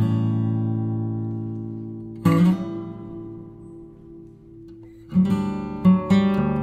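Background music on acoustic guitar: a chord is strummed and left to ring out, a second one about two seconds in, then a steadier strumming pattern picks up about five seconds in.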